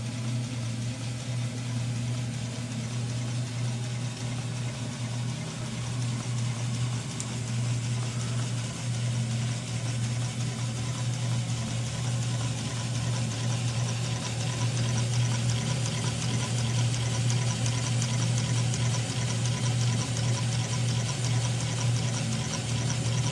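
Small steam engine running steadily on steam from an electrically heated boiler: a continuous fast mechanical beat with hiss, growing a little louder about halfway through.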